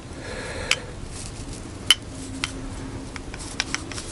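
Scattered light metallic clicks and clinks, about half a dozen and the loudest about two seconds in, from an engine piston being handled and its rings turned in their grooves to check that they move freely.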